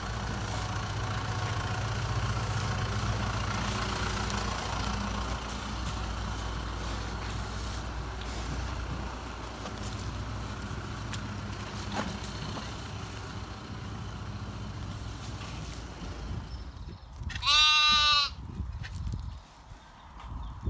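Pigs snuffling and grunting low as they root through chopped greens. Near the end a lamb bleats once, a loud call of about a second.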